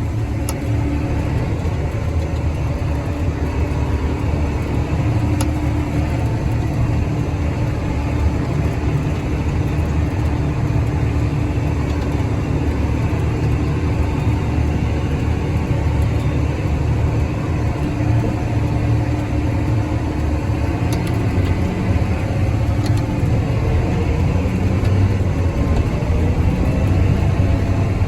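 Farm tractor engine running steadily under load in a high road gear, pulling a loaded grain wagon: a continuous low rumble that holds even throughout.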